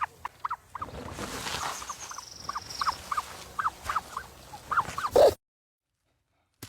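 Spotted hyenas giving short, high giggling calls, two or three a second, over a light hiss. The sound cuts off suddenly about five seconds in.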